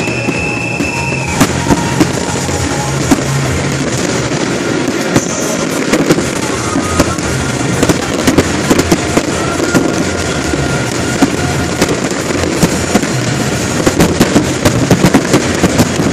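Aerial fireworks display: a continuous barrage of shell bursts and crackling, with the bangs coming thick and fast near the end as the finale builds.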